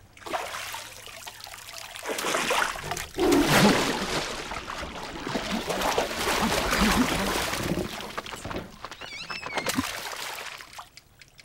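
Water splashing and sloshing in a glass fish tank as a head is plunged in and thrashed around, in repeated noisy surges that die away near the end.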